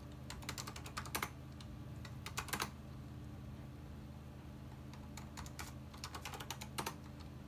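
Typing on the Macintosh IIcx's keyboard: about four short flurries of keystrokes, over a steady low hum.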